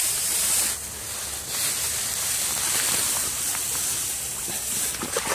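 Dry grass rustling and brushing against the phone as it is pushed through the bank's tall dead grass: a steady scratchy hiss, brightest in the first second, with a few faint clicks near the end.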